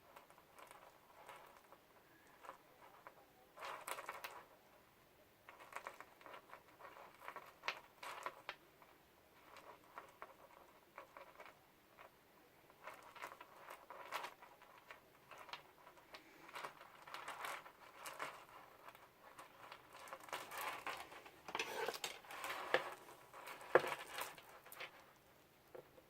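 Faint, irregular clicking and rustling of a beaded elastic bracelet handled while a knot is tied in its cord, the beads knocking together; the clicks come more often near the end.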